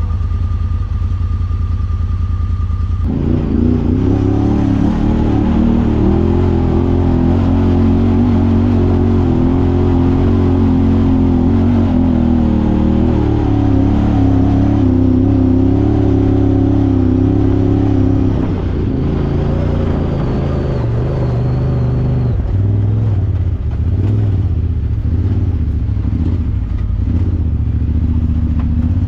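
Side-by-side UTV engine pulling hard under load as the machine crawls up a steep, rocky hill in low gear. The sound changes abruptly about three seconds in, and the engine note shifts again past the middle.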